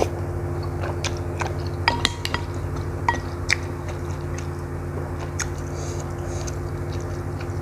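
Close-up eating sounds: chewing of instant noodles and meatballs, with wooden chopsticks and a wooden spoon clicking against a ceramic bowl, a few sharp clicks, some ringing briefly, mostly in the first half. A steady low hum runs underneath.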